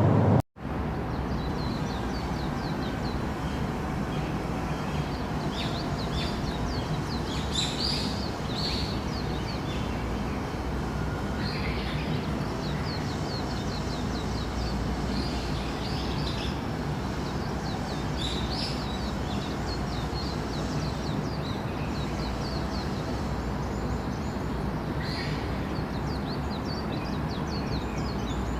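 Steady low background rumble with many small birds chirping over it, with a few louder clusters of calls. The sound drops out for a moment about half a second in.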